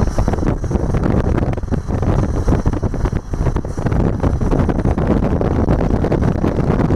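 Wind rushing past a moving car and buffeting the microphone, over steady road noise from the tyres.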